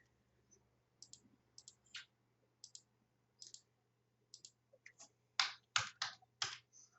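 Computer mouse clicking: a string of short sharp clicks, many in quick pairs, with the loudest few clustered near the end.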